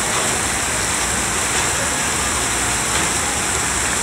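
Steady rushing and hissing of running water from a water park's splash-play features, an even, unbroken noise.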